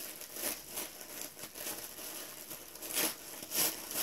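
Tissue paper rustling and crinkling as it is unwrapped by hand, with a few louder crinkles about half a second in, at about three seconds and just after.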